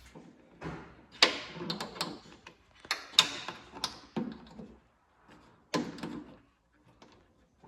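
Irregular knocks, clicks and short clatters of hard car parts being handled and fitted on a car's trunk lid, in several bunches with pauses between.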